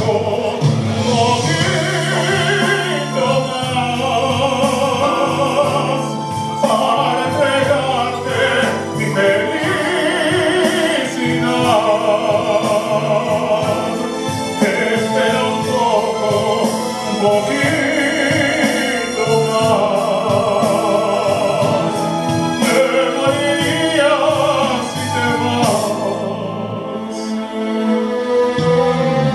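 Tenor singing a romantic ballad in full operatic voice with wide vibrato on held notes, over instrumental accompaniment. Near the end the singing stops and the accompaniment carries on.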